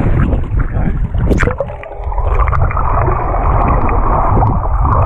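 Splashing as the recording goes under the water about a second and a half in. After that comes the steady, muffled underwater churn of a small electric trolling motor's spinning propeller.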